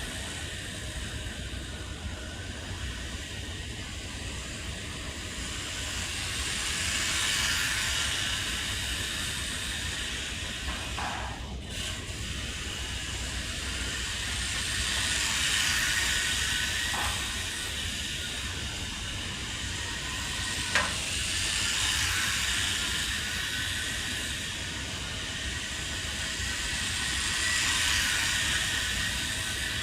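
Small electric RC car driving laps, its motor whine and tyre hiss swelling and fading as it comes round about every seven to eight seconds, with a few light knocks.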